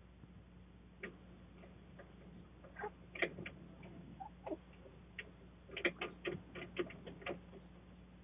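Chickens pecking and scratching in the coop: a run of irregular light clicks and taps, thickest about three seconds in and again from about six to seven seconds.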